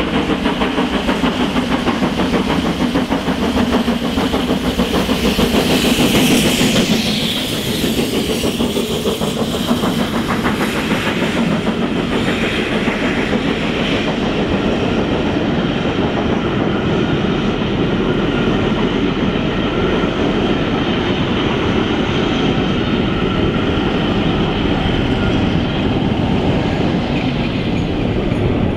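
GWR Castle class 4-6-0 steam locomotive working hard at speed, with fast exhaust beats, passes close by about six seconds in, its sound falling in pitch as it goes. The long train of carriages follows, wheels rolling and clattering over the rail joints.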